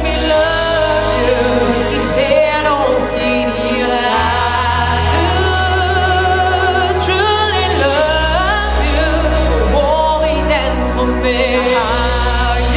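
Music: a song with singing, the voice held and wavering over sustained bass notes that change about every four seconds.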